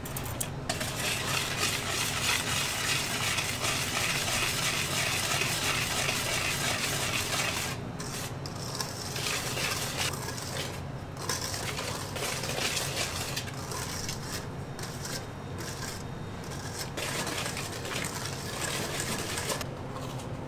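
Metal kitchen utensils scraping and clinking, dense for the first several seconds, then in short spells with gaps.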